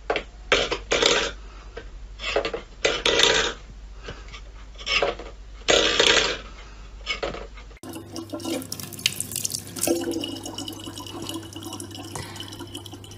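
A stainless steel pet bowl clattering and scraping on a wooden floor in several short bursts as a cat paws at it. About eight seconds in, this gives way to a thin stream of water running from a tap into a plastic water bottle.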